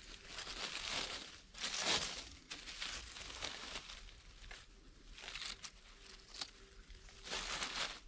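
Dry fallen leaves and pine needles rustling and crinkling in several short bursts as hands pick orange-cap boletes out of the leaf litter.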